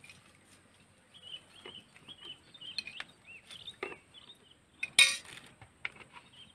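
Plastic bottles of liquid being handled, with scattered knocks and clicks and one sharp, louder knock about five seconds in. Short high chirps run throughout.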